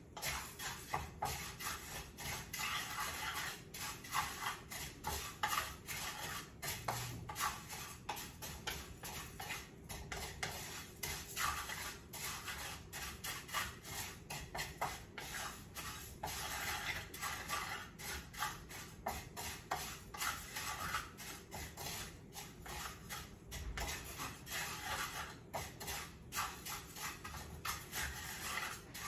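Wooden spatula stirring dry, raw rice as it toasts golden in an oil-free skillet: a steady, irregular run of scrapes and light rattling clicks of grains against the pan.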